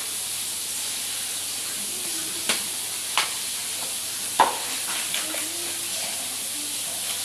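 Food sizzling in a frying pan, a steady hiss, with four or five sharp knocks of a utensil against the pan in the middle.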